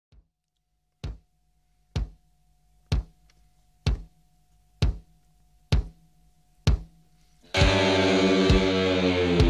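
Background music: a lone bass drum beats about once a second for seven beats, then a loud guitar-led band section comes in all at once near the end.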